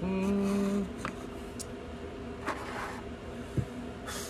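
A man's hum, one steady held note lasting under a second, then a few soft clicks and brief rustles from handling small plastic figure parts over a faint steady background noise.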